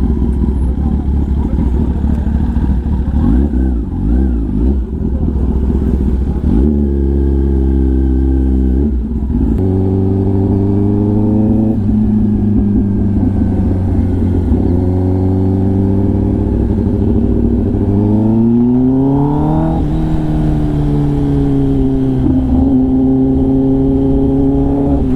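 Kawasaki ZX-10R's inline-four engine running through an SC-Project titanium exhaust while riding at steady revs. The pitch shifts about nine seconds in, then climbs as the bike accelerates around eighteen seconds in and drops at an upshift, settling steady again. Wind rumble on the microphone underneath.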